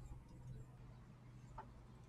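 Near silence: a faint steady low hum, with one faint click about one and a half seconds in.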